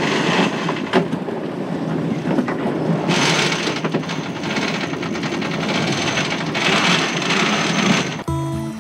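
Wind rushing over the microphone in a sailboat's cockpit during a tack, with the headsail sheet being hauled in by hand and at the winch, in three louder rushes of noise. Music comes in near the end.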